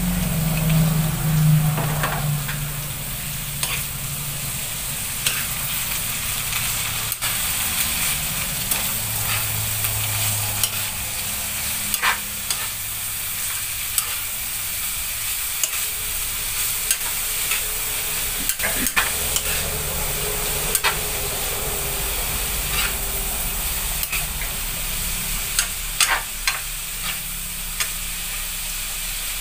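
Bitter gourd and carrots sizzling in a wok, stirred with a metal spatula that scrapes and clicks against the pan now and then. A low hum sits under it for the first couple of seconds.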